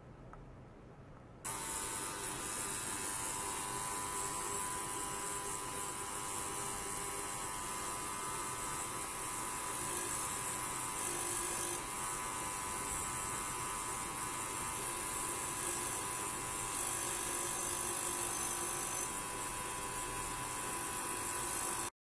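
Benchtop ultrasonic cleaner running with stainless steel containers standing in its bath, switched on about a second and a half in. It gives a steady high hiss and buzz with a cluster of steady tones, and cuts off abruptly near the end.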